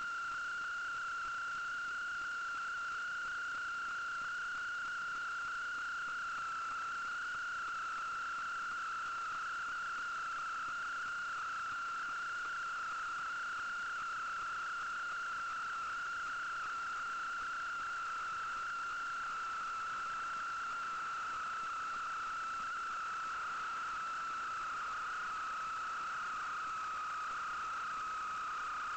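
Steady high-pitched electronic whine on the sewer camera system's recording: one unbroken tone with a fainter overtone above it, sinking slightly in pitch near the end, over a constant hiss.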